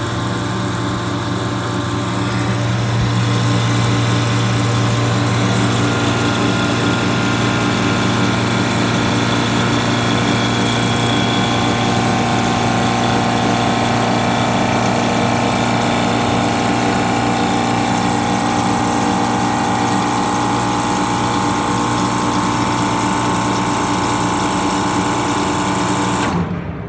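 Copeland refrigeration compressor running steadily during a pumpdown, with a strong hum, a high whine and a mid tone that slowly climbs in pitch. This is the run in which the owner heard a strange ticking noise while testing, after acid was found in the compressor oil. The sound cuts off near the end.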